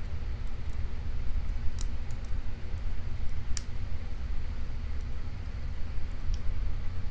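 Sparse, faint, sharp clicks of a lock pick working inside a small Brady ABUS lockout padlock, catching on the warding as it is worked toward the pins, over a steady low rumble.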